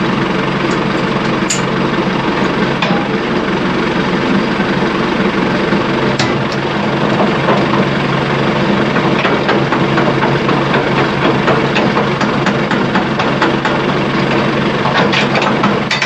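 Tractor engine running steadily, with scattered light clicks and rattles over it.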